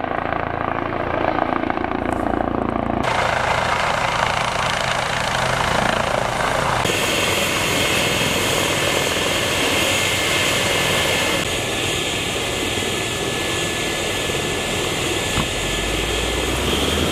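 Eurocopter EC135 trauma helicopter's rotors and turbines running loud and steady. The sound changes abruptly about 3, 7 and 11 seconds in.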